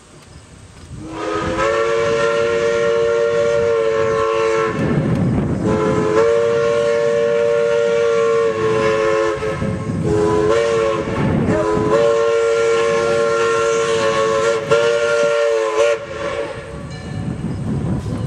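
A train's multi-tone horn sounding the grade-crossing signal: two long blasts, a short one, then a final long blast, each a steady chord. A low rumble of the approaching train runs between the blasts and after them.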